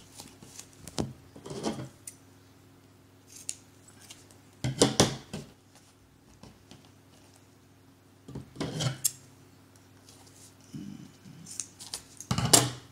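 Scissors snipping and the rustle of a vinyl adhesive repair patch being handled, in short bursts a few seconds apart, the loudest about five seconds in and near the end.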